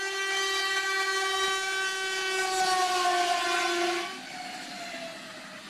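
A passenger train's horn sounds one long chord for about four seconds as the train rushes past, warning of a school bus on the track ahead. The horn then fades with a falling pitch.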